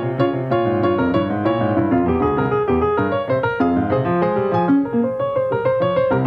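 Piano music, a steady stream of quick notes.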